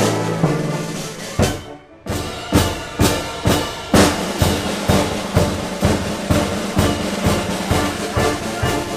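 Youth symphony orchestra playing a loud, driving passage, with brass and a bass drum struck on the beat. After a brief break about two seconds in, the bass drum strokes come steadily, about two a second.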